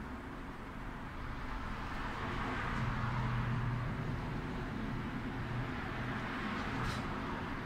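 Steady background rumble and hiss that swell for a few seconds in the middle, with a light click near the end.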